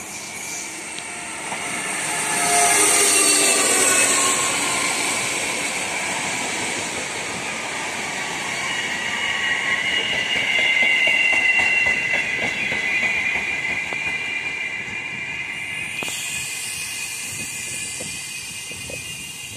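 Electric multiple unit train running along the station track, its steel wheels squealing in long high-pitched whines that swell about two to four seconds in and again past the middle.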